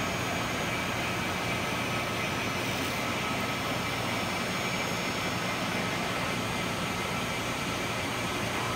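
CNC fast-wire saw running steadily, its spinning wire cutting through a slab of rock wool insulation. It makes an even whirring hiss with faint steady high whines and a low hum, unchanging throughout.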